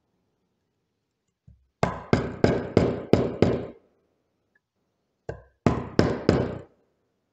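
A chisel being struck to chop a mortise in wood: a run of six sharp knocks at about three a second, a pause, then four more.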